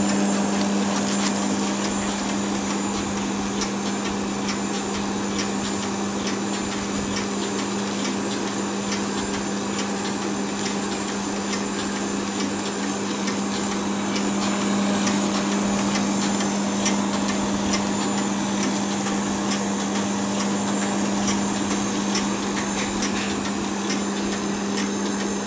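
FR900 continuous band sealer running, its conveyor drive motor and cooling fan giving a steady hum with an airy hiss, overlaid by many light clicks and rattles from the moving mechanism as a plastic bag is fed through.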